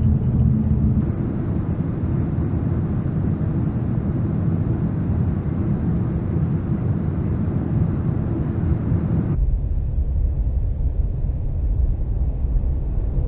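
Steady low rumble of a truck on the move, engine and tyre noise heard from inside the cab. About two-thirds of the way through, the sound turns abruptly duller and deeper.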